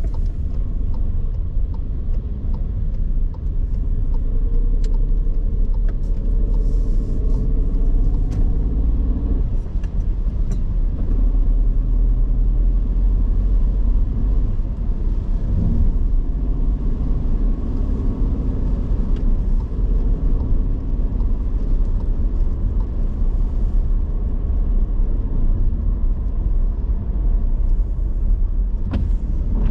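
Car driving, with a steady low rumble of road and engine noise. Around four to nine seconds in, the engine note rises in pitch as it accelerates.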